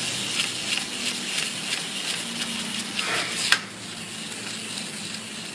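Small plastic wind-up seal toy's clockwork motor running with a buzzing whir and regular clicks, about three a second, as the toy flips and tumbles on a hard surface. A sharp click comes about three and a half seconds in, after which it is quieter.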